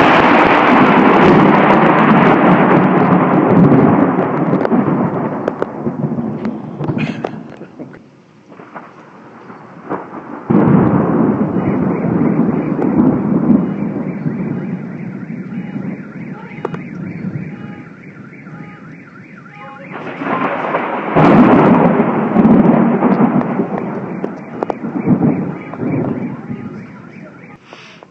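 Thunder during a severe thunderstorm: three long rolling peals, each breaking suddenly and dying away over several seconds. A car alarm sounds faintly in a repeating pattern in the quieter stretch between the second and third peals.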